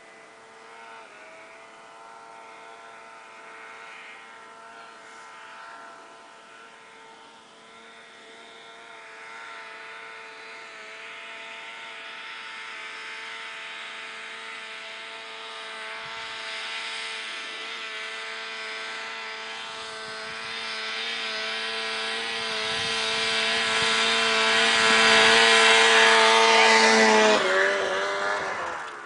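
Ski-Doo MXZ 800 snowmobile's two-stroke 800 cc twin engine running at a steady high note, growing much louder as the sled comes closer. Near the end the pitch drops and the sound fades quickly.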